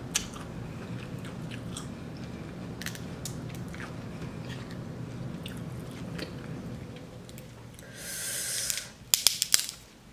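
Close-up chewing and biting of seafood-boil food, with small wet mouth clicks throughout. Near the end there is a short hiss, then a few sharp clicks.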